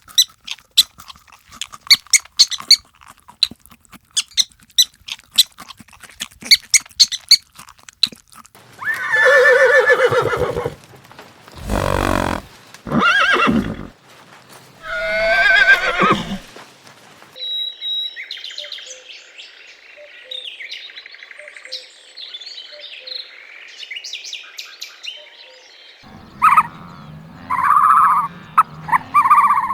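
A run of different animal sounds in turn. First comes a fast string of sharp clicks. Then come loud horse whinnies with a snort between them. Then high chirping follows, and a few shorter calls near the end.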